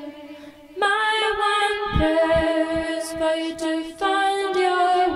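A woman's voice singing long held notes in the song, entering under a second in and moving to a new pitch every second or so, over a soft regular low pulse.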